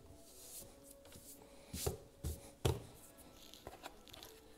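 Hard plastic snowmobile glovebox extension being picked up and handled on a wooden workbench: three sharp knocks within about a second, about two seconds in, then a few light ticks of plastic.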